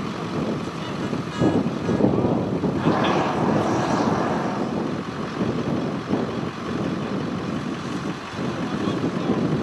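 Gusty wind buffeting the camera microphone: a rushing, rumbling noise that swells and drops, loudest a couple of seconds in.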